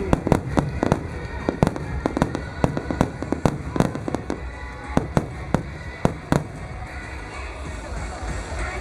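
Fireworks bursting in a rapid string of sharp bangs, several a second for about six seconds, then thinning out near the end, with music playing underneath.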